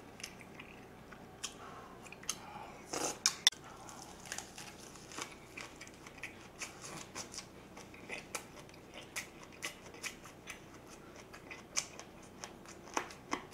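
Close-miked eating sounds: chewing with many small, crisp clicking crunches. A cluster of sharper knocks comes about three seconds in.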